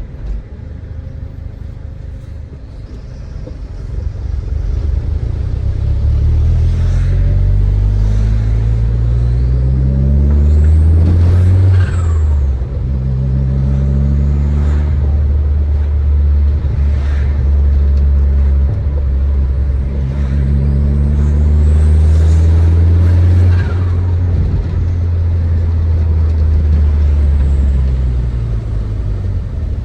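Turbocharged Audi A3 1.8T 20V four-cylinder, Stage 3 tuned with a K04 turbo and a 3-inch stainless exhaust, accelerating hard through the gears. The engine note climbs and then drops sharply at each shift, with a rising turbo whistle and short turbo flutter on lift-off.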